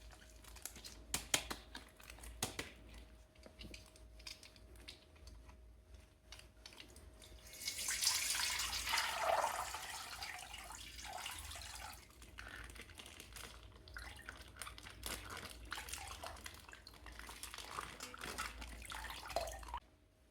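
Water splashing and trickling, with scattered clicks at first. It is loudest for a few seconds about eight seconds in and cuts off suddenly near the end.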